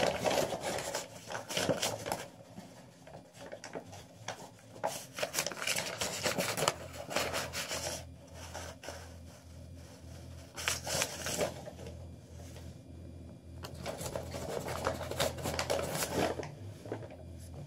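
A sheet of junk-mail paper being waggled under a door, scraping and rustling against the carpet and the door edge while a cat's paws bat at it. The rustling and scraping come in several irregular bouts with quieter pauses between.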